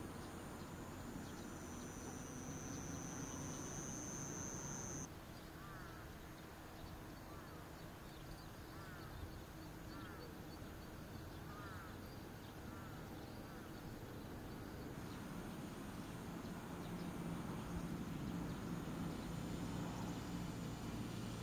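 Outdoor ambience of insects giving a steady high-pitched buzz, which stops abruptly about five seconds in and returns fainter near the end, over a low steady hum. A few short chirps sound in the quieter middle part.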